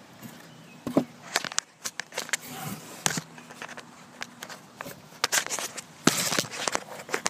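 Camera handling noise as it is set down and adjusted: scattered clicks, knocks and rustles, with a louder rustling burst about six seconds in.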